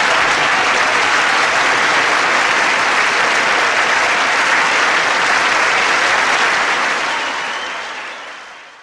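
Audience applauding after the punchline, fading out over the last couple of seconds.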